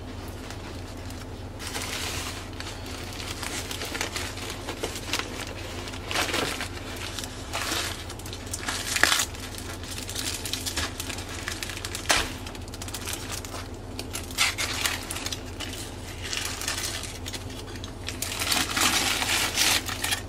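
Newspaper packing and aluminium foil being pulled off a potted plant by hand: irregular crinkling and rustling with occasional sharp crackles, over a faint steady low hum.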